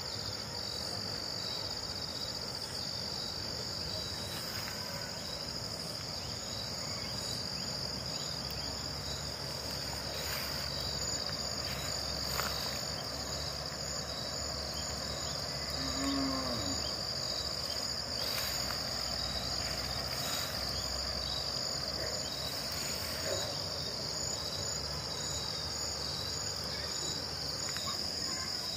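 Field insect chorus: a steady, high-pitched trilling that runs without a break. A brief low call is heard about halfway through.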